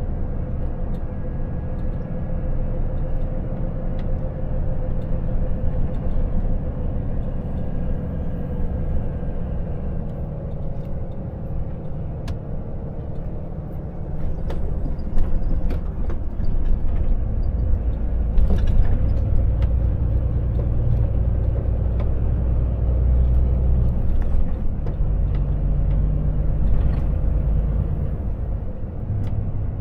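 Volvo FH truck driving, heard from inside the cab: a steady low rumble of drivetrain and tyre noise. The rumble grows louder about halfway through as the truck picks up speed.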